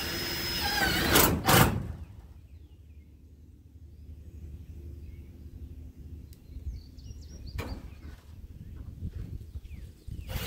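Cordless drill running as it drives a screw into a corrugated metal roof panel; its whine drops off about a second in, followed by two sharp knocks. After that only occasional clicks and knocks over quiet outdoor background.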